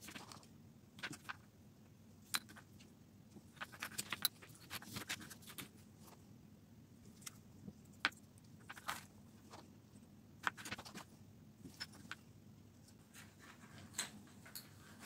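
Faint, scattered clicks and light rattles of beads and wooden letter tags knocking together as they are handled and threaded onto jute twine.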